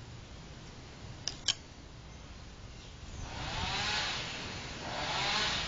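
Two light clicks about a second in as small kit parts are handled, then a rushing noise from about three seconds in that swells and fades twice over a low background hum.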